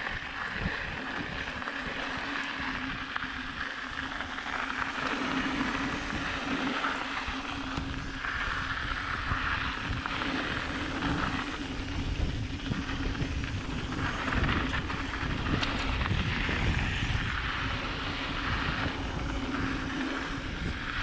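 Mountain bike riding down a dirt singletrack: tyre noise and rattle over the trail, with wind rumbling on a handlebar-mounted camera. A steady droning hum runs under it from about a second in.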